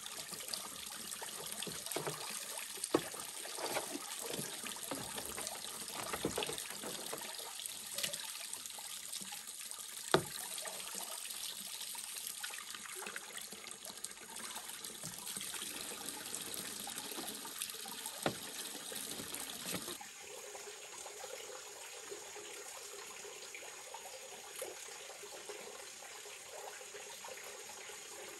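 Steady trickling of water, with a few sharp knocks, loudest about ten seconds in. The water sound grows a little quieter about twenty seconds in.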